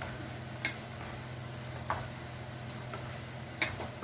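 A hand kneading a soft mashed jackfruit and potato mixture in a steel bowl, with three light clicks against the metal over a steady low hum.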